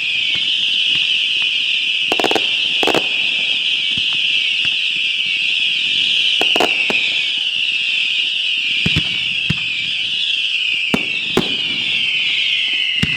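Fireworks whistles screaming continuously as one shrill, wavering tone that slides slowly lower, with a few sharp bangs going off through it.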